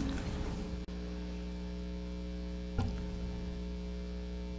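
Steady electrical mains hum, a low buzz with a few higher overtones, broken once by a faint click a little under three seconds in.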